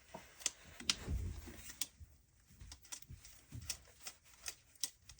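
Scattered light clicks and taps of a circuit breaker and screwdriver being handled while the breaker is fitted into a breaker panel, with a few soft bumps.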